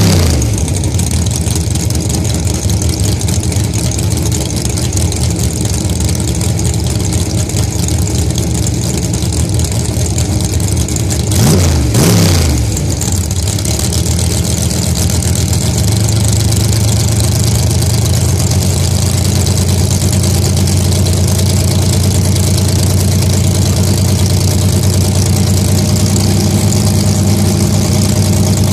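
Two dragsters' engines idling loudly at the starting line, with a quick rev that rises and falls about twelve seconds in, then a steady, deep idle as the cars stage.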